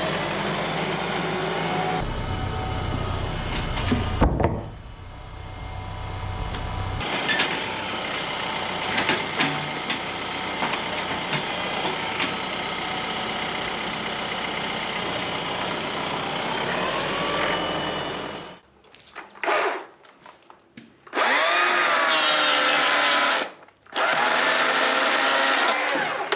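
Machinery running in several short edited clips that change and cut off abruptly: an engine running steadily, then a power tool running loudly with rising and falling pitch near the end.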